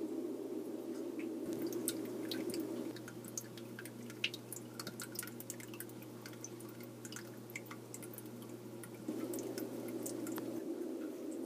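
Water dripping and trickling in a turtle tank: many small scattered drip and tick sounds over a steady low hum. The hum drops about three seconds in and returns near the end.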